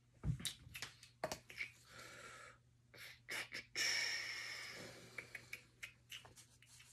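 Scattered light clicks and knocks from a lacrosse stick being handled, with a low thump just after the start. A long breathy exhale comes about four seconds in and fades out.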